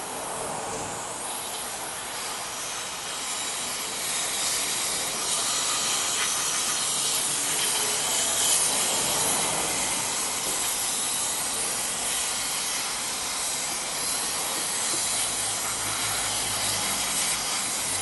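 Aerosol brake cleaner spraying in a steady hiss onto a rear drum brake's shoes and backing plate, washing out the brake dust. The spray gets louder about four seconds in.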